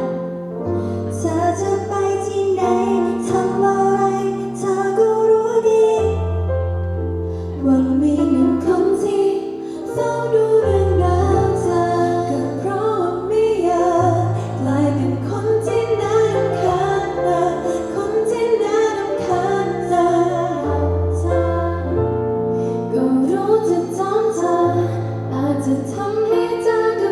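Female pop vocals sung live over instrumental accompaniment, with held bass notes that change every second or two.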